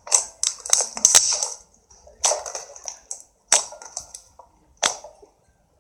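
Thick slime being squeezed and kneaded by hand, giving wet crackling and popping squishes: a long crackly squish at first, then three shorter squishes about a second apart.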